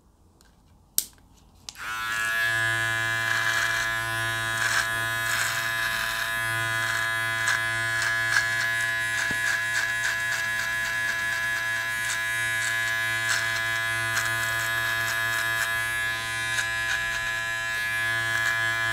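Powertec TR-758 beard trimmer with a click about a second in, then switched on and running with a steady buzz as it trims beard hair, small crackles of cut hair over the hum.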